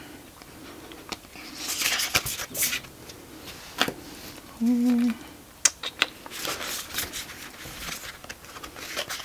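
Stiff cardstock tarot cards being sorted by hand: soft rustling and sliding with scattered light clicks as cards are pulled and tapped into place. A short hummed "mm" from a voice about five seconds in.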